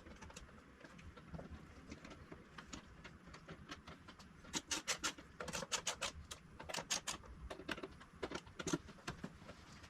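Irregular sharp clicks and taps of small hardware and a hand tool as windscreen screws are set and finger-tightened, thickest in the second half.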